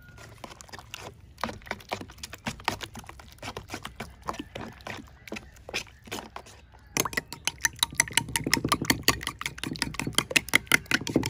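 A spoon stirring a wet ground-pork and egg mixture in a stainless steel bowl, clicking and scraping against the metal at an irregular pace. About seven seconds in, this gives way to a fork beating egg yolks in a glass bowl: a fast, steady, louder clinking.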